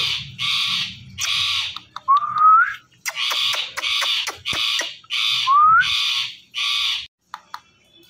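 Indian ringneck parakeet giving a rapid run of short, harsh calls, about two a second, with two brief rising whistles mixed in. The calls stop about seven seconds in.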